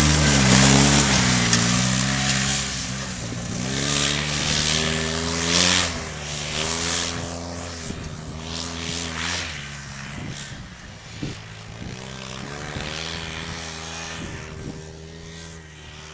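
Off-road vehicle engine revving up and down as it drives, fading gradually as it moves away.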